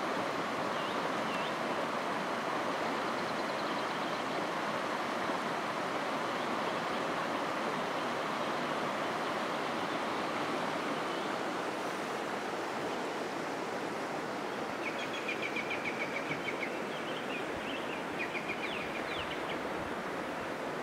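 Steady rushing noise of river water, with quick, repeated bird chirps for a few seconds near the end.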